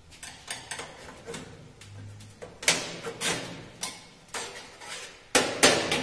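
Stainless steel drip-tray grate of a Wega espresso machine clattering and knocking against the machine as it is worked loose and lifted out. It starts as a few light taps and builds into loud metallic clanks, the loudest two close together near the end.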